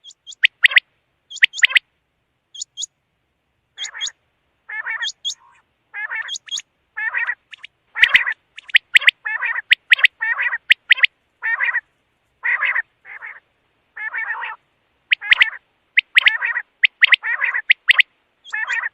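Quail calling: a long run of short, separate calls, thin high notes mixed with rougher lower notes, coming in quick groups that grow more frequent about halfway through.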